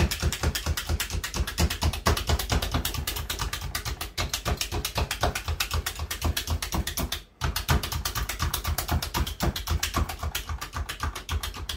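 Handheld blade meat tenderizer pushed down again and again through a raw chicken breast onto a cutting board. Its blades shoot out with each press, making rapid clacking at several strokes a second, with a brief pause about seven seconds in.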